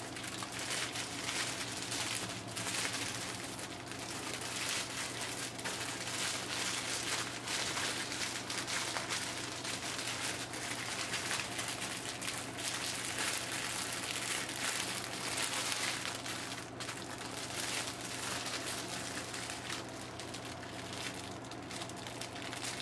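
Plastic packaging crinkling and crackling without a break as it is handled and folded.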